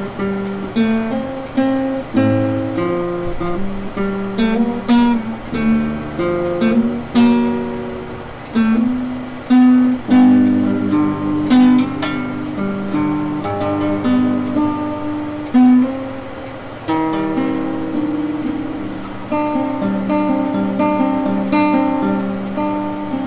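Acoustic guitar played solo: a run of plucked notes and strummed chords that ring out and fade, with no singing.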